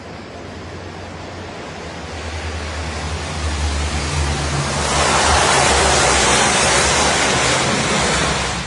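Canadair firefighting aircraft's engines droning as it touches down on the sea and skims the water to scoop a load. The drone grows steadily louder and turns into a broad rushing noise about five seconds in, which drops away sharply just before the end.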